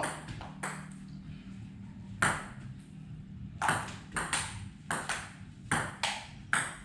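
Table tennis ball clicking off bats and the table: a few scattered sharp ticks, then a quick rally of about eight hits in the second half.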